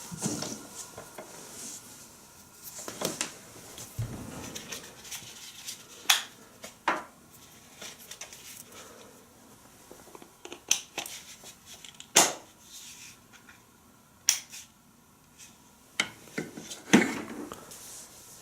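Irregular sharp clicks and knocks of hard objects being handled, about a dozen spread out with quiet between them.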